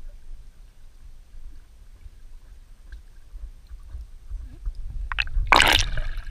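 Pool water sloshing and gurgling around a camera held underwater, heard muffled with a low rumble, then a loud splash about five and a half seconds in.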